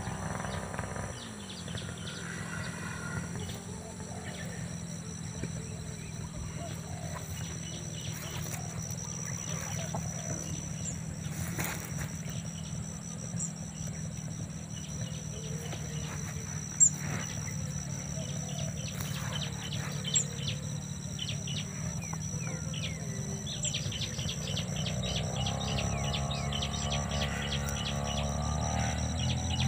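Outdoor field ambience: a steady high insect drone, a few short bird chirps, and a low steady rumble underneath. A couple of sharp clicks stand out, the louder one about halfway through.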